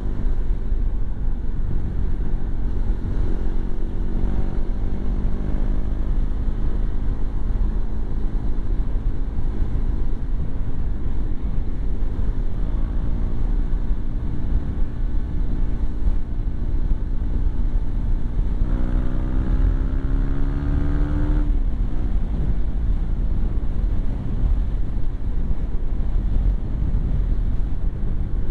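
Motorcycle engine running at road speed under heavy wind rush on the microphone. About nineteen seconds in, the engine note climbs steadily for two or three seconds as it accelerates, then drops off suddenly.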